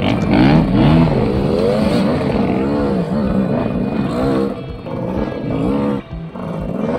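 Enduro dirt bike engines revving up and down repeatedly as the bikes accelerate and back off along a rough trail, with background music under them.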